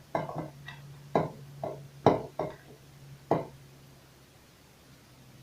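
Pieces of cypress cone dropped one by one into a small teapot, about eight sharp clinks and knocks over the first three and a half seconds, over a steady low hum.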